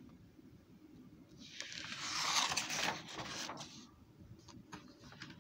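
A paper page of a picture book being turned: a rustling swish lasting about two seconds, followed by a few faint clicks.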